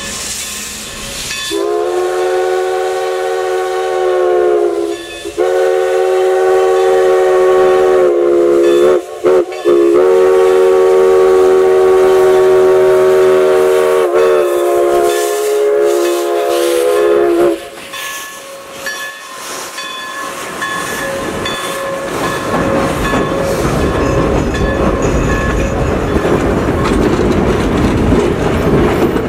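Steam locomotive Everett Railroad No. 11, a 2-8-0, starting away with hissing steam, then sounding its steam whistle in several long blasts with brief breaks for about sixteen seconds. Its coaches then roll past with a low rumble and clickety-clack that grows louder toward the end.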